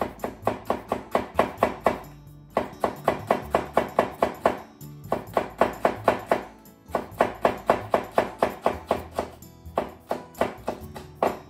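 Chef's knife rapidly slicing a green bell pepper into thin strips on a wooden cutting board: quick knife strikes on the board, about five a second, in runs of about two seconds with short pauses between. Background music plays underneath.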